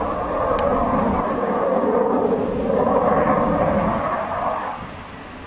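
Aircraft flying past with a loud engine rumble that dies away near the end.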